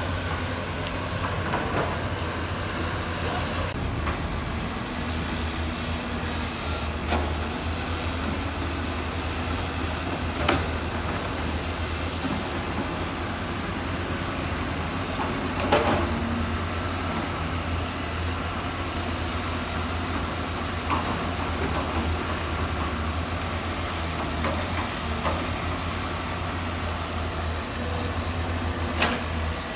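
Heavy diesel construction machinery running steadily with a low engine drone, with a few sharp metallic clanks, the loudest about halfway through.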